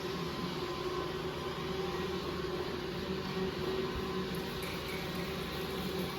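A floor-cleaning machine's motor running with a steady, unchanging hum.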